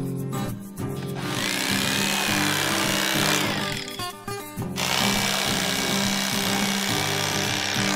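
Vintage Black & Decker electric fillet knife running as it cuts through crappie, in two stretches with a short stop about three and a half seconds in, over background music.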